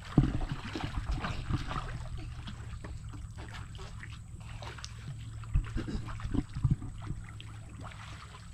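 Pool water splashing and sloshing as a child swims, with a sharp splash just after the start and a few more splashes around five and a half to seven seconds in, over a steady low hum.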